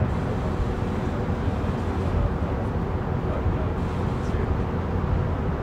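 A vehicle's steady low rumble with a faint steady hum.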